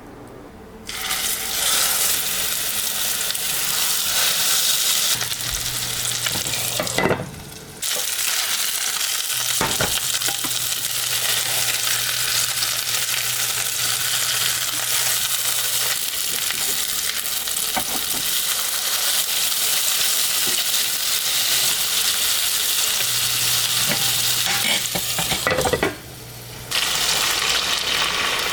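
Hamburger steak patties sizzling in a hot frying pan: a loud, steady sizzle that starts about a second in and cuts out briefly twice, about a quarter of the way through and near the end.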